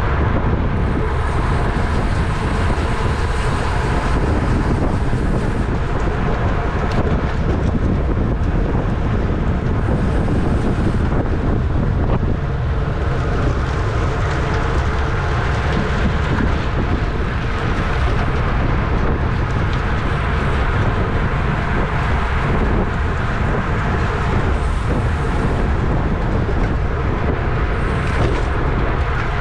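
Steady wind buffeting on the microphone of a camera carried on a bicycle at racing speed in a criterium bunch, a constant heavy rushing.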